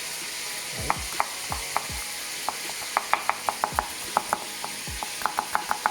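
Chunks of bull meat frying in oil in a pot, sizzling steadily. A utensil stirring them makes irregular sharp clicks and taps against the pot.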